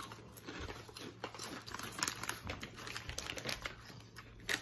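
Rap Snacks potato chip bag crinkling and crackling in irregular bursts as it is handled, with a sharper crackle near the end.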